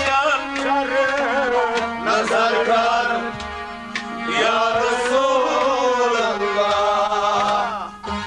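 Male voice singing a Kashmiri Sufi kalam in long, pitch-bending melismatic phrases over a steady harmonium drone; near the end the voice glides downward as a phrase closes.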